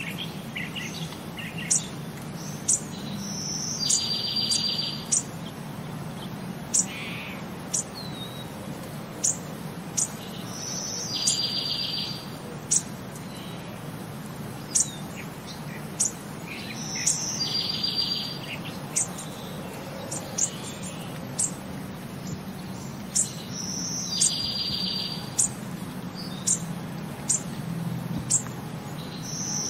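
Birdsong ambience recording: short high chirps about once a second, and a fast trill that comes back every six or seven seconds, looping over a steady low hum.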